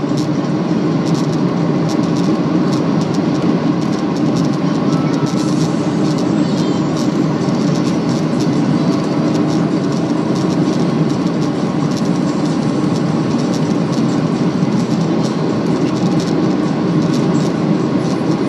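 Steady cabin noise inside a Boeing 737-800: the rush of its CFM56 jet engines and airflow, with light rattling clicks from the cabin fittings.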